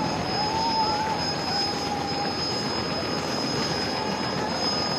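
Turbine utility helicopter running on the ground with its two-blade rotor turning: a steady high whine over a dense rushing noise, with a wavering squeal-like tone during the first two seconds.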